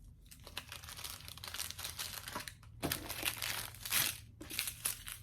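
Small plastic bags of diamond-painting drills crinkling as they are handled and sorted, with louder bursts of crinkling about three and four seconds in.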